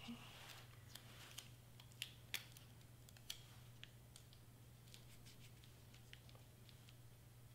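Near silence: faint clicks and light rustles of cardstock pieces being pressed down and shifted by hand on a cutting mat, over a steady low hum. Two sharper clicks come close together about two seconds in.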